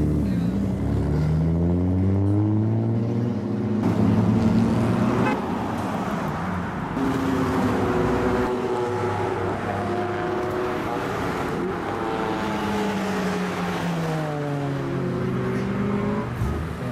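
Car engines as cars pull out one after another: one engine note climbs as a car accelerates away in the first few seconds, then another car's engine revs up and down repeatedly as it drives slowly past.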